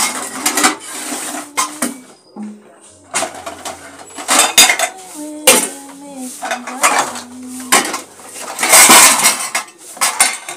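Metal bowls, pots and spoons clattering and clinking in a plastic basin as they are washed by hand, in irregular knocks, with a dense burst of rattling about nine seconds in.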